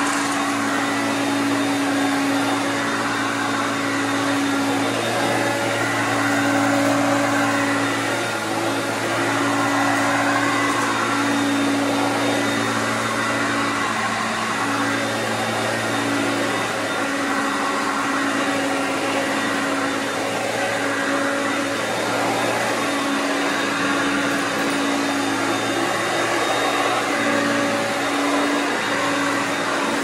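Hoover Concept upright vacuum cleaner running steadily, a continuous motor hum with a rushing of air over it.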